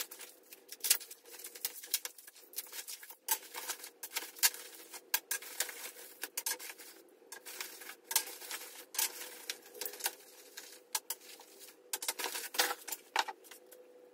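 Parts and packaging being handled on a workbench: quick, irregular clicks and rustles over a faint steady hum.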